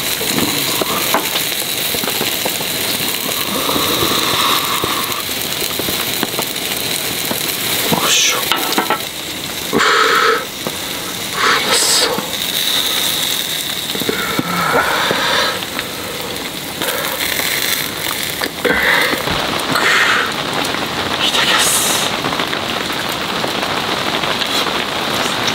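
Heavy rain pattering on the tent, mixed with chicken-and-leek yakitori skewers sizzling on a small wire-mesh grill. A few short murmurs and hums from a man break through now and then.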